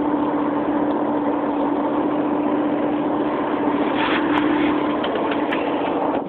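Bus engine running steadily, heard from inside the passenger cabin as a constant rumble with an even hum. A few light knocks about four to five seconds in.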